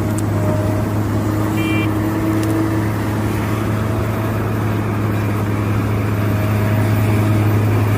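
Excavator's diesel engine running steadily with a deep, even hum.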